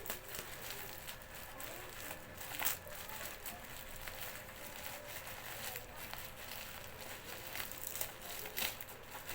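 Packaging being handled during an unboxing: crinkling and rustling with scattered light clicks, and a couple of sharper knocks.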